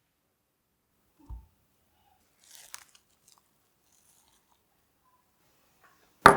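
A few separate short sounds: a soft low thump, a brief crackle, and near the end one loud sharp crack with a short ringing tail.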